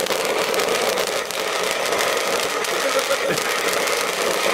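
KitchenAid stand mixer's motor running steadily at high speed, its beater whirling, with the fizzing crackle of a sparkler burning in the bowl.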